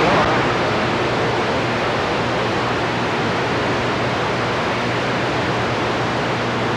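CB radio receiver on the 27 MHz band hissing with steady band static between transmissions.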